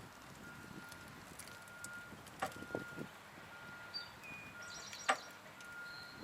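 A vehicle's reversing alarm beeping about once a second, a single steady tone, faint against the outdoor background, with a few sharp knocks, the loudest about five seconds in.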